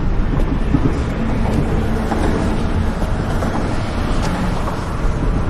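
Steady rumble of road traffic: a dense, even low noise with no distinct events.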